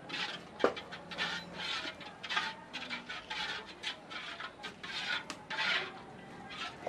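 Metal spatula scraping and stirring in a metal wok of soupy seblak, in repeated scratchy strokes a little under two a second, with a sharp clank of metal on metal about two-thirds of a second in.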